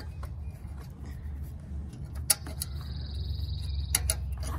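A small clip on a car's front-end steel bracket being handled and pushed into place: a sharp click about halfway through and a couple of lighter clicks near the end, over a steady low rumble. A high buzzing trill sounds for about a second after the first click.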